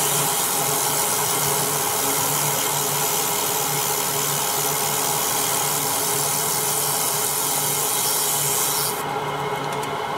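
Fiber laser marker deep-engraving an aluminum block: a steady, loud hissing crackle of the beam ablating the metal over a steady machine hum. The high hiss stops about nine seconds in, leaving the hum.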